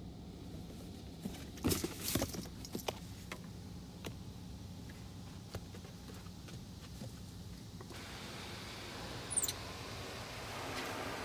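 Automatic car wash heard from inside the car: a steady low hum, several sharp clicks and knocks in the first few seconds, then from about eight seconds a hiss of water spray on the car that grows louder. A short, high squeak falls in pitch near the end.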